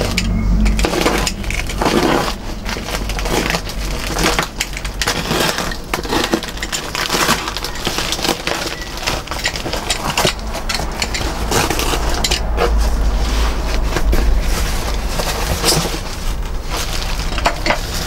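Plastic parcel wrap and a cardboard shipping box being cut and torn open by hand: a long run of irregular crackling, rustling and ripping.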